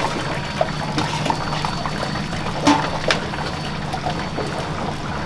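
A metal fry scoop scraping and clinking against a stainless steel fry holding tray as French fries are scooped into a cardboard box, with a few sharper knocks about halfway through, over a steady kitchen hiss and hum.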